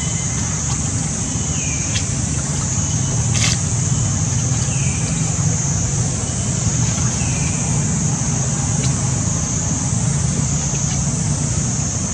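Steady outdoor background noise: an even high hiss and a low rumble, with a short falling chirp every two seconds or so and a sharp click about three and a half seconds in.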